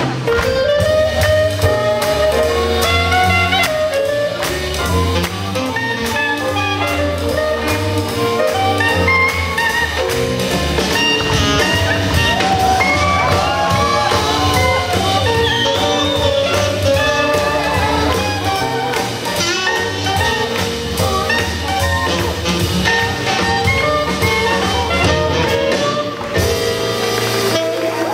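Live swing jazz band playing, with saxophones and trumpet over double bass and drum kit.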